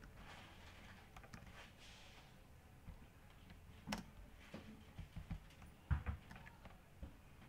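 Computer keyboard keystrokes and mouse clicks: a scatter of separate clicks, the sharpest about four and six seconds in.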